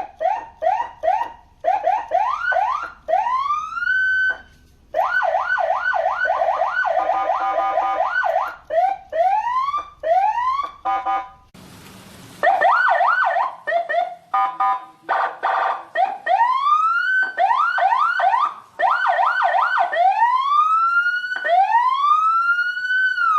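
Senken CJB100BD electronic police siren run through its tones: quick repeated yelps, slower rising wail sweeps, and short hi-lo two-tone stretches, switching every second or two. A brief hiss cuts in about twelve seconds in, and a long rise-and-fall wail plays near the end.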